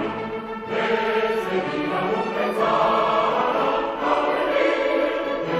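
A choir singing a Romanian May Day song, played as background music.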